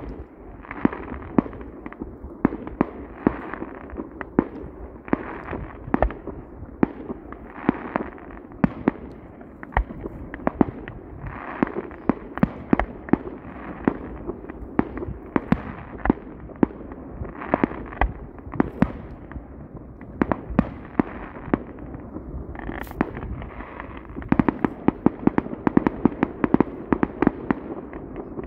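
Fireworks going off: a steady string of sharp bangs, one or two a second, over continuous crackling, with the bangs coming quicker and denser in the last few seconds.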